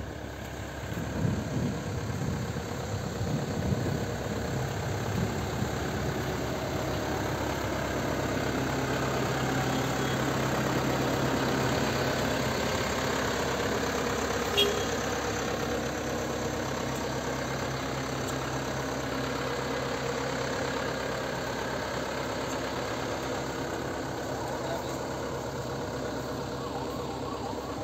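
Komatsu PC130 hydraulic excavator's diesel engine idling steadily, with a few short knocks in the first several seconds.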